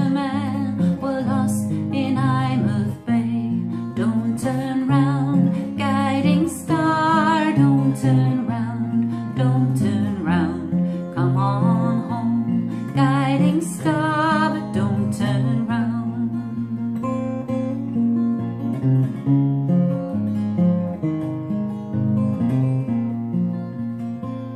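A woman singing with vibrato to her own strummed acoustic guitar; after about sixteen seconds the voice stops and the guitar plays on alone.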